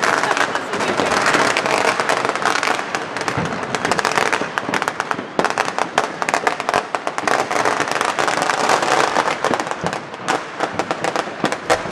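Dense, continuous crackling of many firecrackers and fireworks going off at once, with a few louder single bangs standing out.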